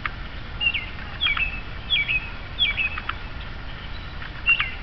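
A bird calling over and over, about six times: each call a short high note that drops in pitch and runs into a brief level note, with a pause before the last ones.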